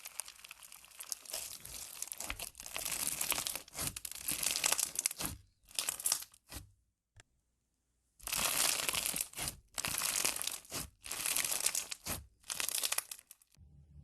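Blade cutting and scraping through dry bar soap: a run of crisp, crunchy strokes that breaks off about six and a half seconds in, then more strokes after a second or so of silence, stopping suddenly near the end.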